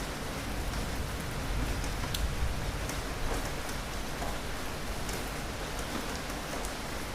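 Steady rainfall hissing, with scattered individual drops ticking close by.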